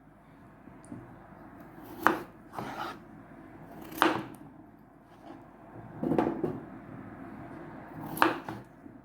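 A kitchen knife cutting potatoes into quarters, with four sharp chops about two seconds apart, some followed by a lighter knock.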